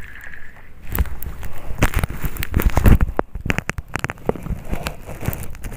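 Irregular crackling and low rumbling from wind and handling on the microphone, loudest about three seconds in.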